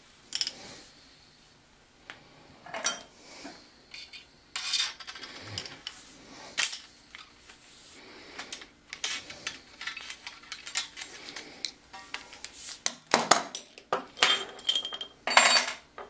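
Hand tube cutter being worked around 3/4-inch copper plumbing pipe: irregular metallic clicks and scrapes. They come thicker and louder over the last few seconds as the cut goes through.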